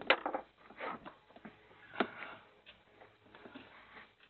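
Sharp clicks and knocks of hand work on fittings and panel: a quick cluster of clicks at the start and a single sharp knock about two seconds in.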